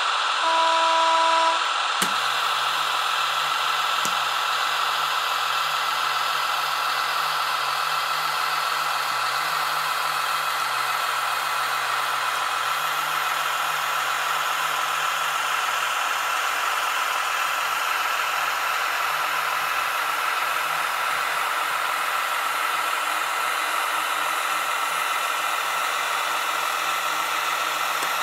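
Piko H0 model of the Kaluga (TGK2) diesel shunter with a sound decoder. It gives a short horn toot, two sharp clicks, then a steady diesel engine sound that shifts in pitch now and then, over the constant whine of the model's motor and gearing.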